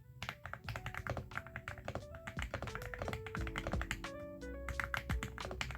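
Rapid typing on an Aula F75 mechanical keyboard with Ice Vein switches and jelly keycaps: a quick, uneven stream of key clacks, several a second. Music plays underneath.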